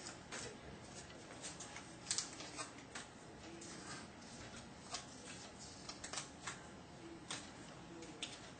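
Faint, irregular taps of paper sticky notes being pressed one by one onto a chalkboard, roughly one or two a second.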